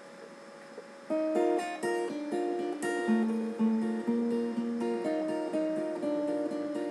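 Acoustic guitar starting the intro of a song about a second in, playing a steady pattern of picked notes.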